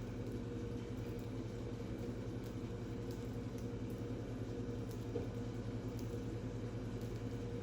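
A steady low mechanical hum with a few faint, scattered high ticks.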